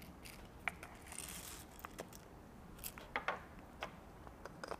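Faint clicks and light scraping from a Rhinowares stainless steel hand coffee grinder being handled, its top being screwed back on after the beans go in.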